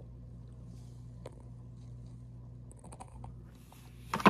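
Light scattered clicks and taps of fishing gear being handled, over a steady low hum, with one sharp, loud clack near the end.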